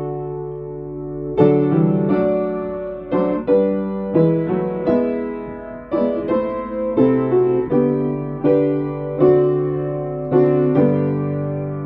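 Piano playing a slow hymn tune in full chords, each chord struck and left to ring and fade. A held chord opens, and the last chord is held and rings on near the end.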